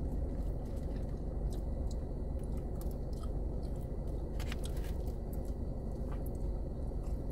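Close-up mouth sounds of a person chewing fried food (fries and a fried fish sandwich), with scattered crisp clicks and a denser cluster a little past four seconds in. A steady low hum runs underneath.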